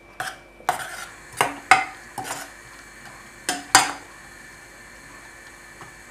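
Metal ladle stirring coconut paste into cooked cucumber in a stainless steel pot, clinking against the pot's sides about seven times in the first four seconds, then going quiet.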